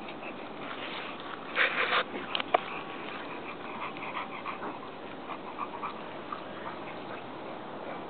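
Small dogs playing, with one short loud bark about one and a half seconds in and two sharp clicks just after it.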